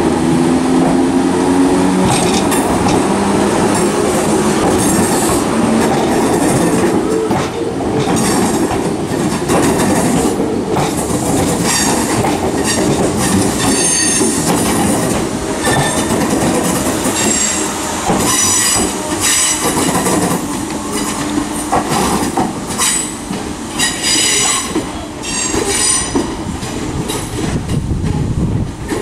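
Class 313 electric multiple unit pulling out, with a low steady motor hum at first. Then come repeated high-pitched squeals from its wheels against the rails, which go on through most of the pull-out and ease slightly near the end.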